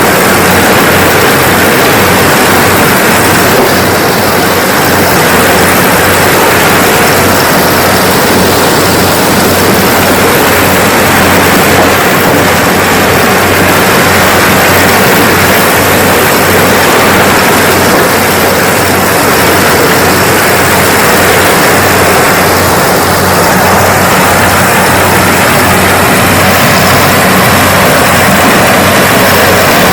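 Kubota DC-70G rice combine harvester running steadily: a loud, even engine drone with a steady low hum under a wide rushing noise.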